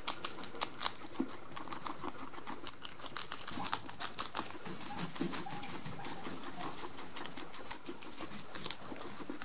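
Guinea pigs chewing lettuce up close: a quick, irregular run of small crunchy clicks.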